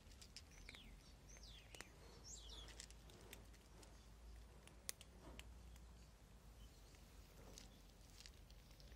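Faint crunching and clicking of cats chewing dry kibble from plates, with one sharper click about five seconds in. A bird chirps three times in the first three seconds.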